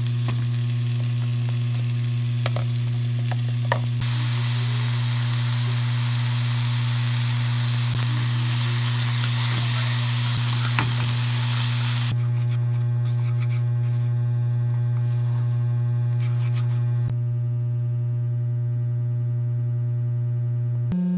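Chopped onions with soy sauce sizzling in a frying pan as they are stirred with wooden chopsticks, loudest in the middle and dying away near the end, with a few light clicks. A steady low electrical hum runs under it throughout and is the loudest sound.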